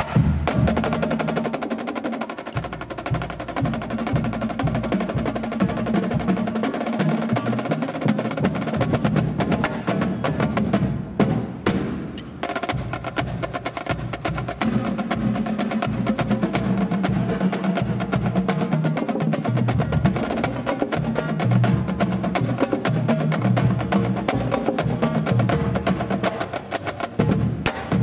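Marching drumline playing, with snare drums, tenor quad drums and bass drums beating rapidly and continuously.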